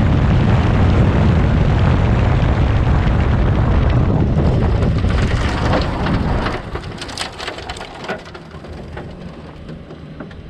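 Turbocharged 4A-GE four-cylinder race car running loud and hard, which cuts out about six and a half seconds in and leaves scattered crackles and ticks: the engine has failed.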